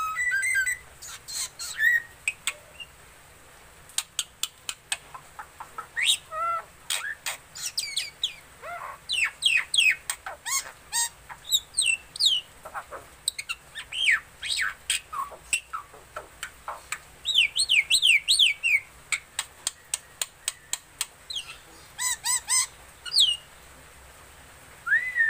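Black-winged myna (jalak putih) singing: a long, varied run of sharp clicks and chattering mixed with short rising and falling whistles, coming in quick bursts.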